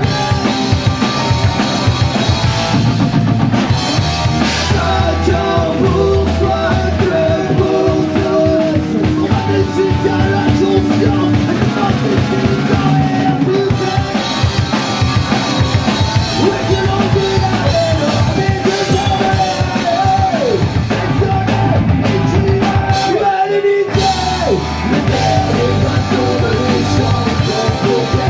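A live punk rock band playing electric guitars, bass guitar and drum kit, with sung vocals. The band stops briefly about three-quarters of the way through, then comes back in.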